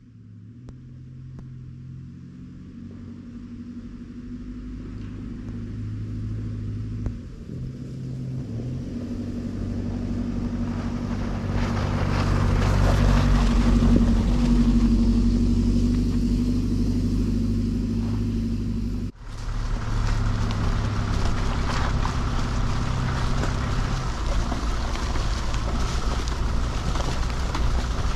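Truck engine and road noise while driving, fading up from very quiet to loud over about fourteen seconds, with a brief dropout about two-thirds of the way through.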